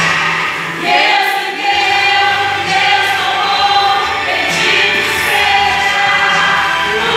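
Two women singing a gospel worship song into handheld microphones, amplified through a sound system.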